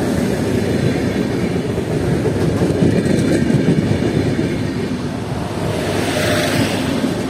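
TerraSur UTS 444 electric multiple unit passing close by: a loud, steady rumble of its wheels running on the rails, starting to fade near the end as the last car goes by.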